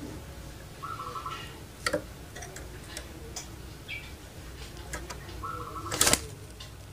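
Puter pelung doves giving two short rolling calls amid scattered ticks and clicks, with a sharp knock about six seconds in as the loudest sound.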